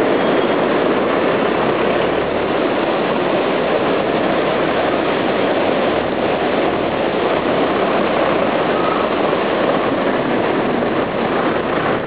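Mountain stream rushing over boulders in white-water cascades: a loud, steady rush of water.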